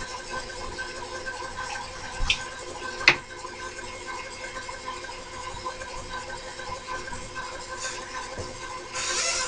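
Steady hum of shop machinery with several even tones. A short tap comes about two seconds in, and a sharp click a second later is the loudest sound.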